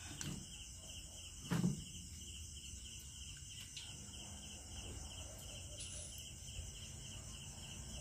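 Crickets chirping steadily in the background, a fast, even trill. A person makes one short vocal sound about a second and a half in.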